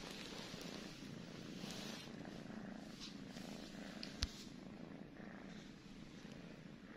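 A domestic cat purring steadily, with one sharp click a little past four seconds in.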